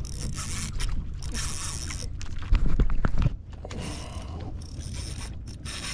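Mechanical clicking and rubbing of fishing tackle being handled on a kayak, with a spell of heavy low bumping about two and a half seconds in.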